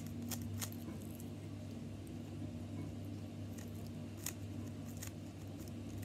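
A few faint clicks of a GAN 356 Air M speed cube's plastic layers being turned by hand, most in the first second and a couple more around four seconds in, over a steady low hum.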